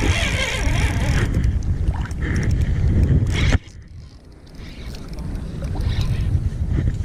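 Wind buffeting the microphone: a loud low rumble with a hiss above it. It cuts off sharply about halfway through, leaving a softer hiss of wind and water that slowly rises again.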